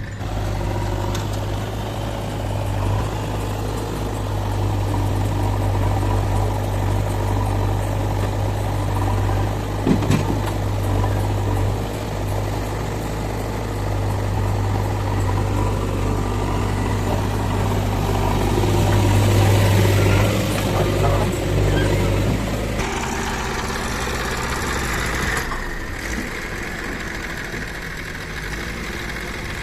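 Heavy diesel machinery engine running steadily with a deep, even hum. A short knock comes about a third of the way in, and the engine note drops and lightens about three quarters of the way through.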